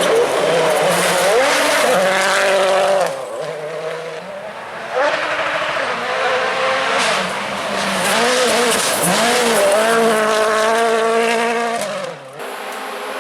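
Rally cars at speed, engines revving hard and dropping back again and again through gear changes, with tyre and road noise beneath. The sound cuts abruptly from one car to another about three seconds in, about five seconds in and near the end.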